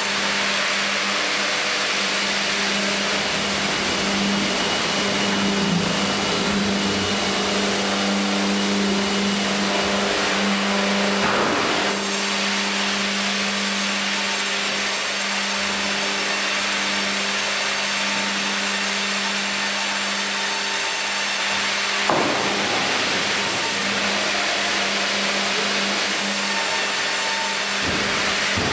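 Fimaksan Fi.120 tandem band saw running with a steady hum, its blades cutting a log as the Fi.130 hydraulic carriage feeds it through the saw and returns it. There are a couple of brief knocks, about two fifths of the way in and again about three quarters in.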